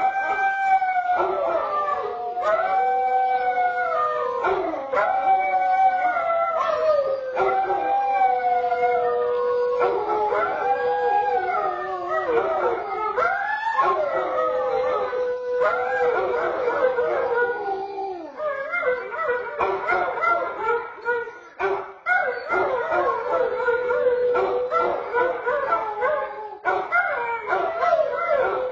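A basset hound and a second, larger dog howling together: long drawn-out howls that rise, hold and fall, one after another and overlapping, with the voices thickening into a chorus about halfway through.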